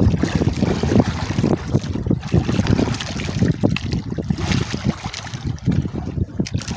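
Wind buffeting the microphone, with water sloshing against the hull of a small outrigger boat at sea.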